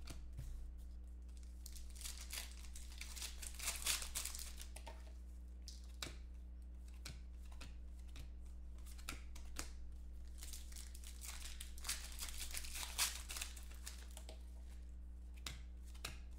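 Foil wrappers of 2014 Panini Contenders football card packs crinkling and tearing open, with small clicks as the cards are handled, busiest about three seconds in and again about ten seconds in. A steady low electrical hum runs underneath.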